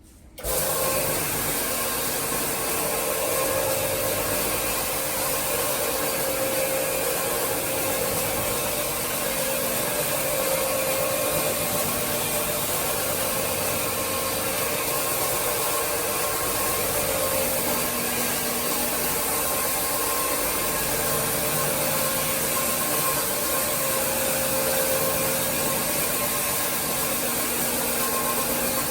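Floor-cleaning machine for tile and grout switching on about half a second in, then running steadily with a vacuum-like motor noise and a constant hum.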